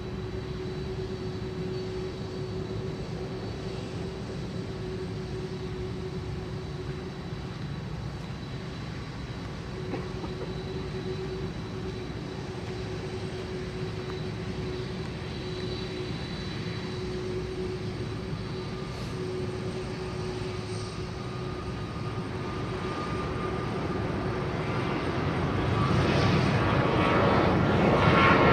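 Boeing 747-400 freighter's jet engines on approach, a steady rush with a held low hum and a faint high whine. It grows louder over the last several seconds as the jet draws nearer.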